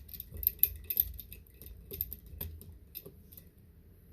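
Small screwdriver bit turning out a battery screw in a Lenovo Flex 6-11 laptop: a run of light, irregular clicks and ticks that thin out after about three and a half seconds.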